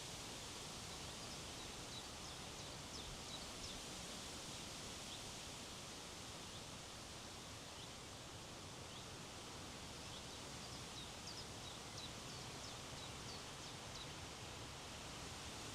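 Steady wind blowing over open hillside vegetation, with faint short high bird chirps scattered through it, in a cluster near the start and another in the second half.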